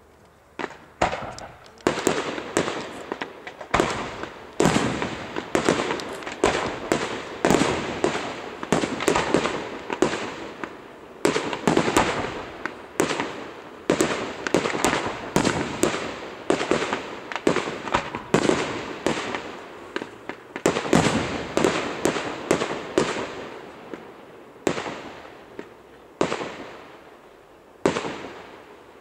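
Aerial firework shells bursting in quick succession, each sharp bang trailing off in echo. The bangs come thick and fast for most of the time, then thin out to a few single bursts near the end.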